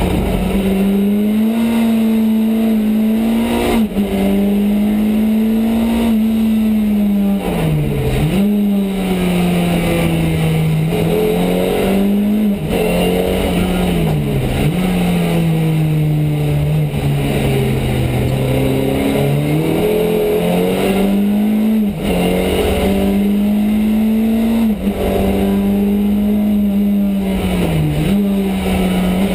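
Ford Escort Mk2 rally car's 2.4-litre Pinto four-cylinder engine running hard under full load, heard from inside the cabin. It is held at high revs for long stretches, and its pitch dips sharply and climbs back several times.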